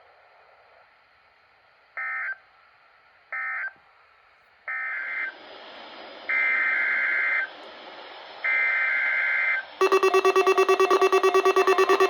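Emergency Alert System data bursts: five short buzzy bursts of digital header tones, each longer than the last. About ten seconds in, a loud alert tone starts, pulsing rapidly at about six or seven beats a second.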